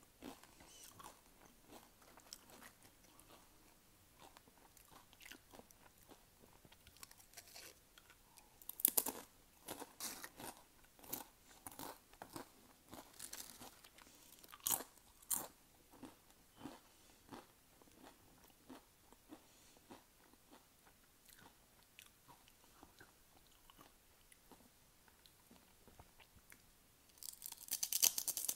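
Kettle-cooked potato chips crunching as they are bitten and chewed, a run of crisp cracks. The cracking is loudest about nine seconds in, again around fifteen seconds, and with a fresh bite near the end.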